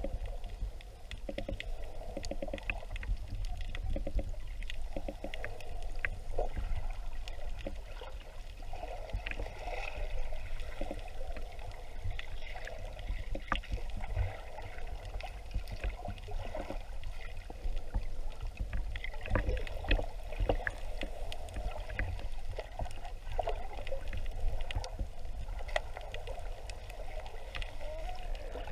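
Underwater sound: a steady low rumble and hum, scattered all through with sharp clicks and crackles.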